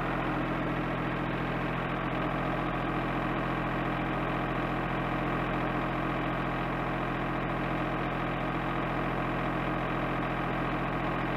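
Steady machine hum, one unchanging pitch with many overtones, that starts and stops abruptly.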